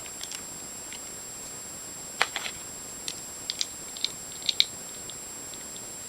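Plastic pieces of a 4x4 puzzle cube clicking and tapping against each other as they are handled and fitted into place: a quick cluster of clicks a little after two seconds in, then about half a dozen separate light clicks, over a steady hiss.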